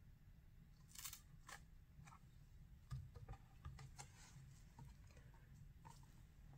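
Faint rustles and a few soft clicks of a cardboard board book being handled as its thick page is turned.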